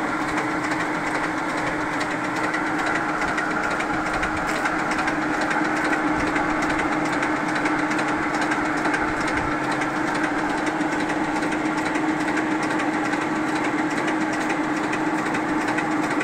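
Water-well drilling rig's engine and machinery running steadily, an even hum with no change in speed.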